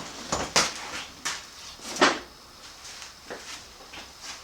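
Metal knocks and clunks as a motorcycle rear axle is worked into place through the wheel and swingarm: a handful of separate sharp knocks, the loudest about two seconds in, then smaller ones.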